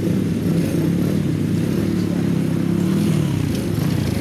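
Customized Honda Monkey minibikes' small four-stroke single-cylinder engines idling, a steady low exhaust note through aftermarket silencers, dipping slightly in pitch about three seconds in.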